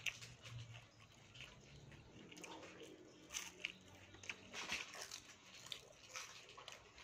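A person chewing crunchy fried grasshoppers with rice, giving scattered soft crunches and mouth clicks.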